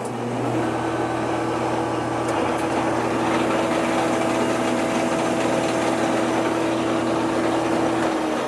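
Grizzly G5851 24-inch 5 hp planer running empty, with no board feeding. Its hum comes up to speed in the first half second, then holds steady, and its pitch begins to drop near the end.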